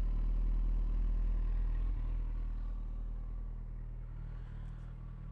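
Kawasaki ZX-14's inline-four engine idling steadily through a full Akrapovič exhaust system, getting a little quieter from about two seconds in.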